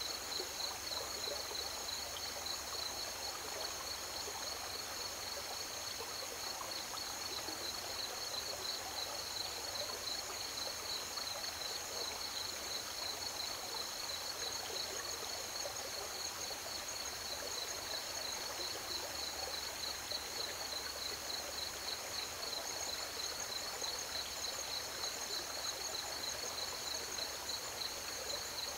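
River water flowing steadily, with crickets chirping in a continuous high-pitched pulsing trill above it.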